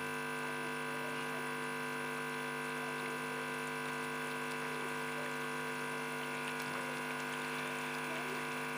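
Chicken in a wok of masala gravy simmering, under a steady hum of several fixed pitches that does not change.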